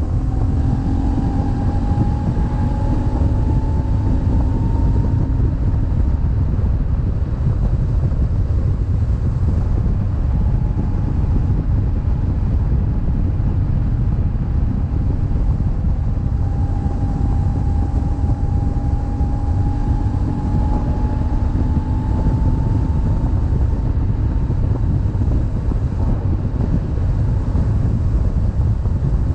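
BMW boxer-twin motorcycle engine running on the road, under heavy wind rumble on the microphone. The engine note climbs slowly in the first few seconds and again about two-thirds through as the bike picks up speed.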